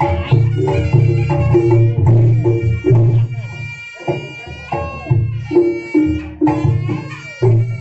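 Reog Ponorogo gamelan accompaniment: drums beaten in a quick driving rhythm with struck gong-chime accents, over a reedy slompret trumpet holding long notes.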